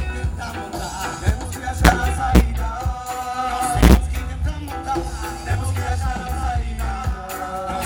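Live reggae band playing a mostly instrumental passage: a heavy bass line under sustained melodic notes, with a few sharp drum hits.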